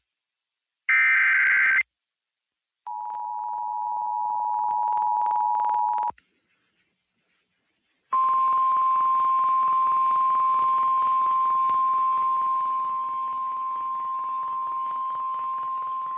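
Emergency Alert System tones: a short buzzy burst of SAME header data about a second in, then the two-tone EAS attention signal for about three seconds, and after a short gap a steady 1050 Hz NOAA Weather Radio warning alarm tone that runs on through the end.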